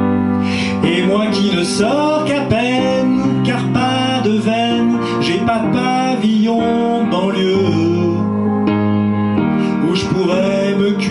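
A man singing a gentle French song into a handheld microphone over a karaoke backing track.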